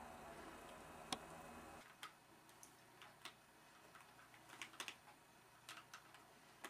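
Near silence: faint room noise that drops away about two seconds in, with a handful of scattered faint clicks at irregular intervals.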